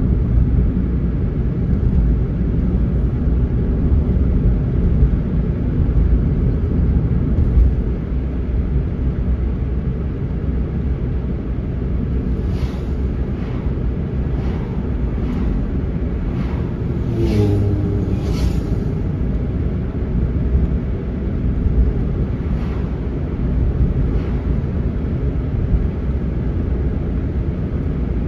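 Steady low rumble of tyres and engine heard from inside a car's cabin while driving on a paved road. Several oncoming vehicles whoosh past between about 12 and 19 seconds in.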